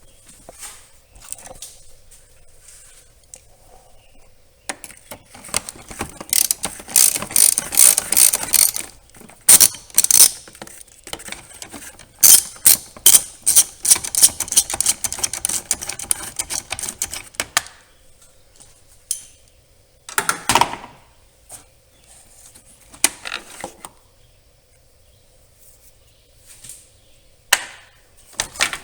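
Socket ratchet clicking rapidly in two long runs as a 10 mm bolt is backed out, followed by a few single knocks.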